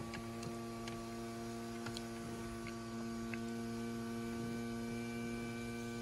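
Electric drive motor of a Lexus RX 450h panoramic sunroof running as the sunshade slides open: a steady, even electric motor hum with a slight change in tone about three seconds in.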